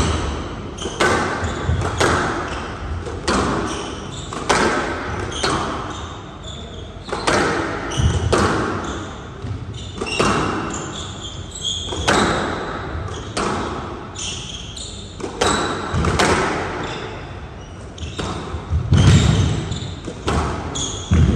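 A squash ball struck by rackets and cracking off the walls in a continuous rally, about one hit a second, each hit echoing around the glass court. Short squeaks of shoes on the court floor come between the hits, and a heavier thud falls near the end.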